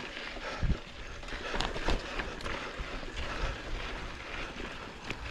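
Trek Marlin 6 hardtail mountain bike ridden up a rocky switchback climb. Tyres rolling over dirt and rock give a steady rough noise, with scattered knocks and clicks from the bike.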